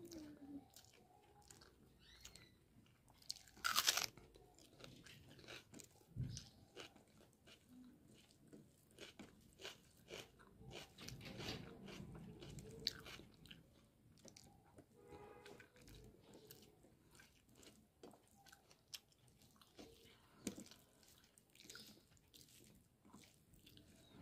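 Faint close-up eating sounds: a person chewing rice and curry eaten by hand, with many small wet mouth clicks and one sharper, louder crunch about four seconds in.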